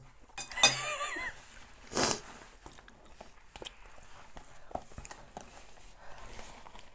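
A short high-pitched laugh about half a second in, then a brief hard blow of breath about two seconds in: a nose being blown into a tissue, runny from the chilli heat. After that, faint clicks and eating sounds.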